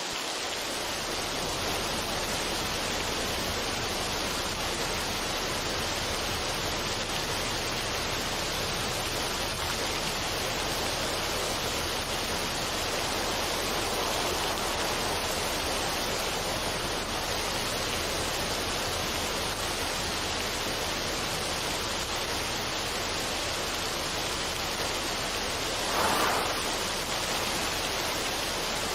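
A steady, even rushing noise with no music or voice in it, swelling briefly about 26 seconds in.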